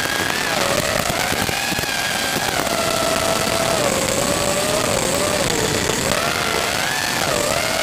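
Brushless motors and props of a 5-inch FPV racing quadcopter whining in flight, the pitch wavering up and down with the throttle, over a steady hiss.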